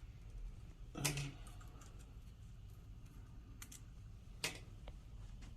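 A few light clicks and taps of parts being handled, the loudest about a second in and another a little past four seconds in.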